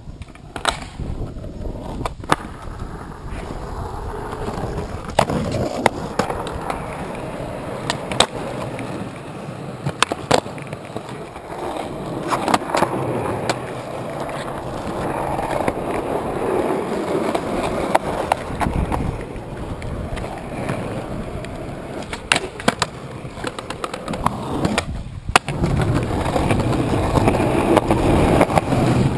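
Skateboard wheels rolling over rough concrete, with sharp clacks from the tail popping and the board landing during flatground tricks.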